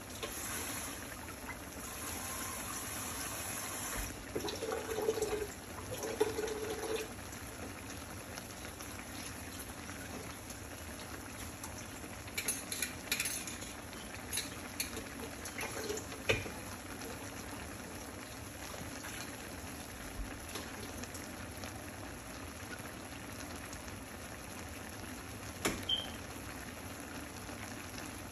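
Shredded beef and chopped vegetables simmering in liquid in a skillet: a steady bubbling and sizzling with scattered small pops.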